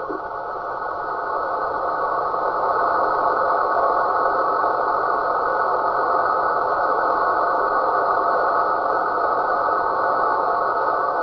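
Steady static-like noise from a radio receiver, filling a narrow mid band with no voice or tone in it. It dips briefly at the start and builds back up over a second or so.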